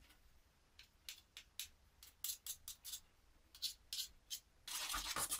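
Faint scraping of a spoon scooping the last peanut butter out of a glass jar: a string of short, separate scrapes, coming thicker and closer together near the end.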